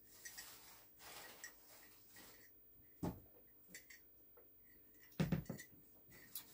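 Quiet sipping through a straw from a cup. A sharp click comes about three seconds in and a soft knock a little after five seconds.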